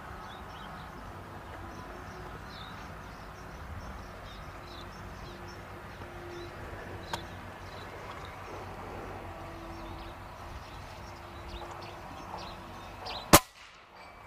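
A single shot from a .25 calibre Reximex Accura PCP air rifle with a shrouded, moderated barrel: one sharp crack near the end, after a long stretch of faint outdoor background.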